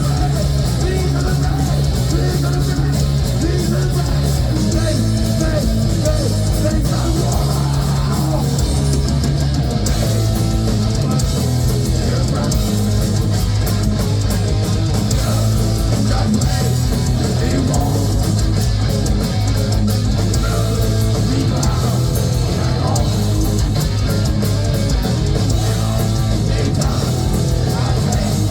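Heavy metal band playing live, with distorted electric guitars, bass and a drum kit, steady and loud throughout.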